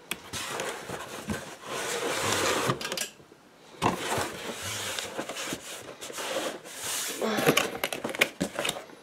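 Cardboard box and its contents being handled: rustling and scraping, broken by a short pause about three seconds in, with a few light knocks.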